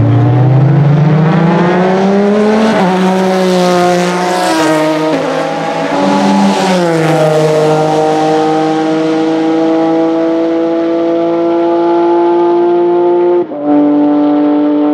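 Porsche 996 GT3 race car's 3.6-litre flat-six accelerating hard under full throttle, its loud pitch climbing through each gear and dropping at each upshift, the last upshift near the end.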